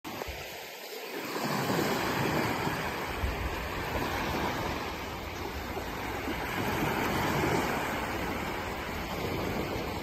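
Small waves washing onto a sandy beach, a steady rush of surf that swells and eases, louder twice as waves come in.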